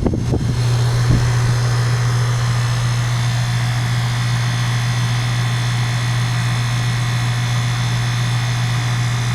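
2-ton Goodman heat pump outdoor unit running in cool mode: the compressor gives a loud, steady low hum, with the condenser fan's steady whir above it.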